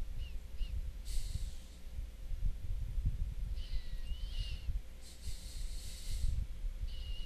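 A person breathing close to the microphone: a series of hissy breaths, some carrying a thin whistling tone, over a low uneven rumble.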